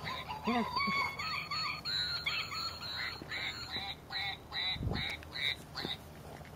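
Plush duck dog toy quacking over and over as a dog bites and squeezes it, in short calls a few times a second. There is one low thump about five seconds in.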